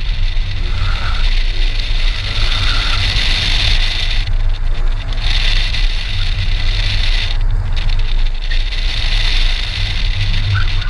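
Saturn Ion Redline's supercharged 2.0-litre four-cylinder driven hard through an autocross course, with heavy wind rumble on the outside-mounted camera. A high hiss drops away briefly about four seconds in and again about seven and a half seconds in.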